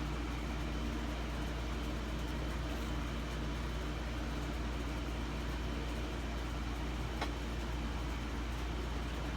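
A steady low hum with hiss, unchanging throughout, and a single faint click about seven seconds in.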